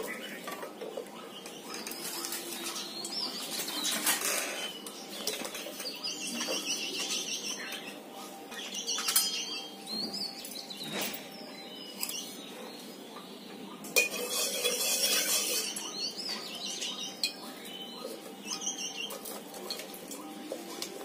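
Small birds chirping in repeated quick trills, with scattered knocks and metallic clinks from dry sticks being pushed into a wood-fired stove and a spoon at an aluminium kadai of heating mustard oil.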